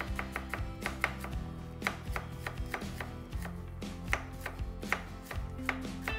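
Chef's knife slicing shallots on a plastic cutting board: quick, irregular knife taps against the board, about three or four a second.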